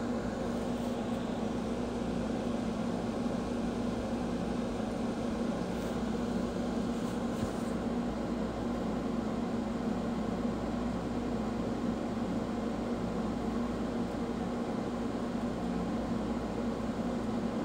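Steady mechanical hum with a low drone, even and unchanging throughout.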